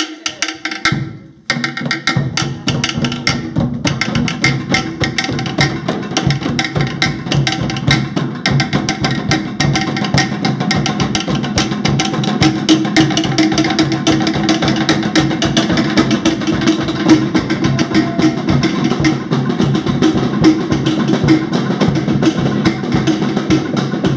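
A percussion group drumming with sticks on hand drums, including a wooden drum, in a fast, dense rhythm. The beat breaks off briefly about a second in, then starts again and grows louder from about halfway.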